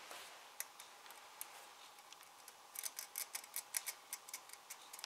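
Faint clicks and light rattling from the Porsche 944 Turbo's camshaft housing as it is worked loose by hand from the cylinder head: a few scattered clicks, then a quick run of clicks a little past the middle.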